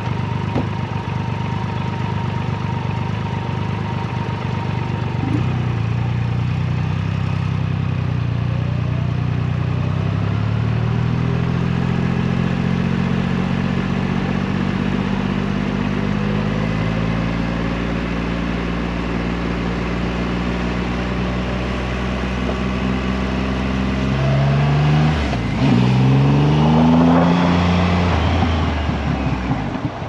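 Triumph Rocket 3's three-cylinder engine idling, then pulling away and accelerating through several gears, the note climbing and dropping back at each shift. The hardest, loudest pull comes late, before the engine eases off near the end.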